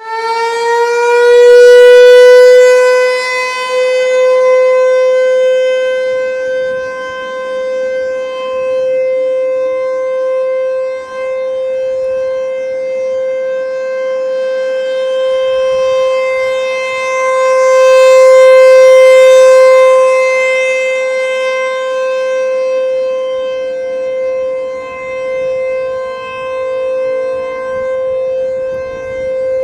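Emergency warning siren sounding during a test: it winds up to pitch over the first couple of seconds, then holds one steady note. Its loudness swells and fades, loudest about two seconds in and again around eighteen seconds.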